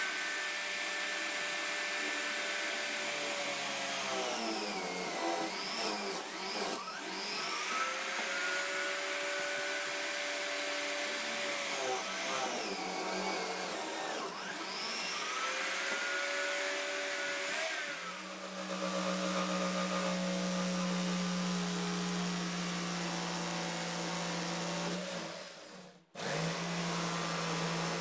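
Corded electric drill in a bench drill stand, running and boring holes in plywood; its whine sags and recovers a few times as the bit bites into the wood. About two-thirds of the way in, a jigsaw takes over with a steadier, lower hum, cut off briefly near the end.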